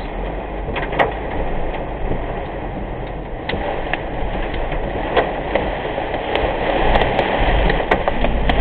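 Heavy rain pelting a moving car's windshield and roof, heard inside the cabin over road and engine noise, with scattered sharp ticks from drops striking the glass. The rain grows louder near the end.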